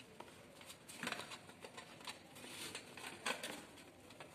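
Faint clicks and rustling of hands pressing a halogen heater rod's rubber end and metal retaining strip into place. A sharper click comes about a second in and another a little past three seconds.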